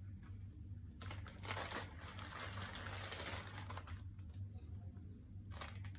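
Rustling and crinkling of packaging being handled, densest from about one to three and a half seconds in, with a few light clicks near the end.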